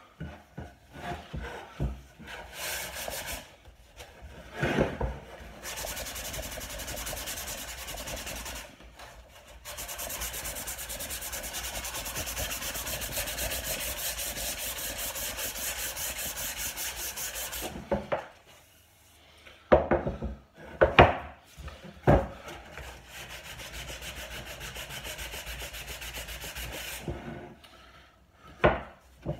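Sandpaper rubbed by hand over carved wood in long runs of quick back-and-forth scratching strokes, smoothing the carving, with short pauses. A few sharp knocks of wood being handled come between the runs, about two-thirds of the way in.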